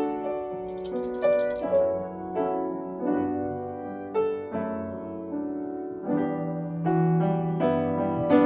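Piano playing a slow instrumental introduction: chords struck one after another, each ringing and fading, with a low bass line entering partway through. A brief faint hiss sounds about a second in.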